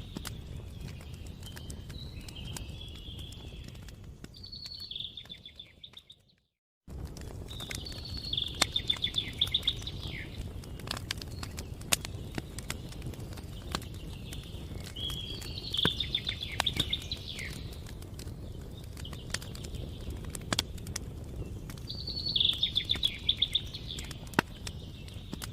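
Campfire crackling with scattered sharp pops over a low rumble, while a songbird sings short trilled phrases every few seconds. About six seconds in, the sound fades to a moment of silence, then starts again abruptly.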